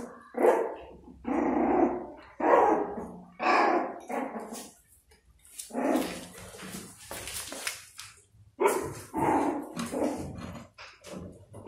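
A kitten growling over its food in a run of short, repeated growls, with a longer hissing stretch midway. It is a warning to keep others away from the food.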